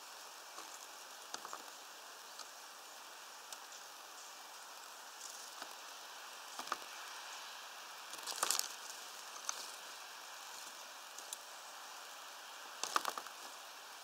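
Light rain falling steadily as a soft hiss, with scattered sharp taps and knocks; the loudest clusters of taps come a little past halfway and near the end.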